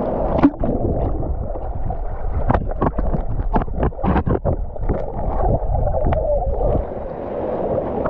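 Muffled water sloshing and gurgling around a swimmer, heard with the action camera's microphone at or under the water surface, with a run of sharp knocks and splashes between about two and five seconds in.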